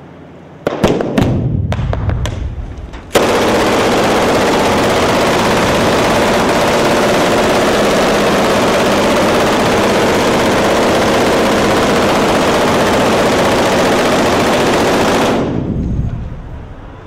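Machine gun firing on a film set: a few sharp bangs, then about three seconds in a long continuous burst of automatic fire that starts abruptly, holds steady and dies away near the end.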